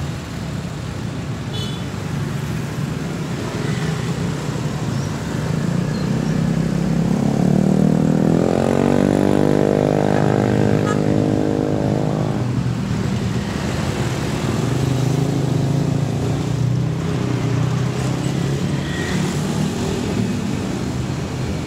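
Busy street traffic, mostly motor scooters running past at close range. About a third of the way in, one vehicle's engine climbs in pitch and holds a steady note for a few seconds as it goes by, then fades back into the traffic.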